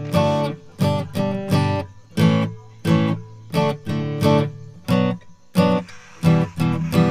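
Background music: a strummed acoustic guitar playing chords in an even rhythm, about three strums every two seconds, with no singing.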